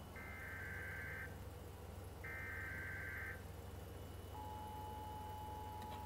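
Emergency Alert System signal played through a TV speaker. Two bursts of the SAME digital header, each about a second long, buzz a second apart; a little over four seconds in, the steady two-tone EAS attention signal starts, the alert for a tropical storm warning.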